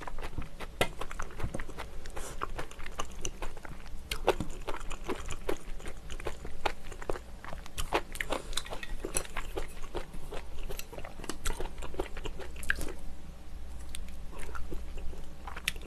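Close-miked mouth sounds of a person chewing a mouthful of rice with braised kimchi and enoki mushrooms: many small, irregular clicks.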